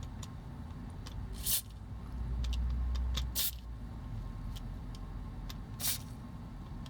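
Light clicks and taps of small tools and plastic toy parts being handled, a few sharp ones standing out, over a low rumble that swells briefly about two seconds in.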